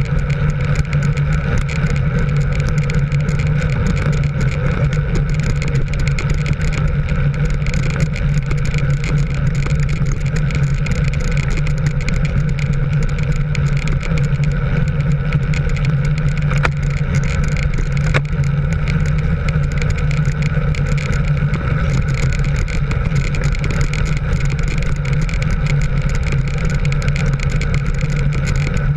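Engine of a motor vehicle running steadily at an even cruising speed, with road and wind noise.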